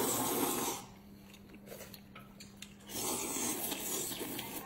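Slurping wide noodles and broth from a bowl: one slurp of about a second at the start and a longer one of about a second and a half about three seconds in, with soft chewing and clicks between.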